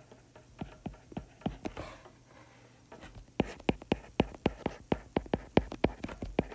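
A stylus tapping on a tablet screen during handwriting makes a string of sharp ticks. They are sparse at first and come quickly, several a second, from about three seconds in.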